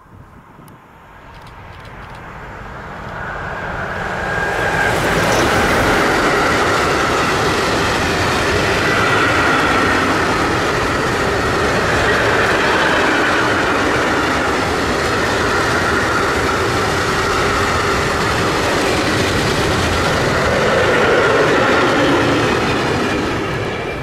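A train passing close by: the noise of its wheels on the rails builds over the first five seconds, then holds loud and steady.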